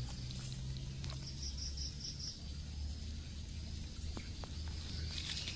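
Outdoor ambience: five quick high chirps about a second in, over a steady low hum, with a couple of faint clicks and a short higher call near the end.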